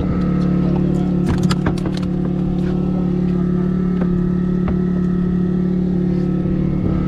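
Steady drone of the fishing boat's engine, with a few light clicks and knocks between about one and two seconds in.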